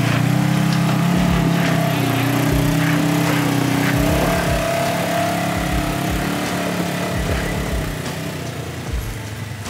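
Polaris General side-by-side's engine running steadily under load as it crawls up a rutted dirt hill. It grows fainter over the last couple of seconds as the machine pulls away.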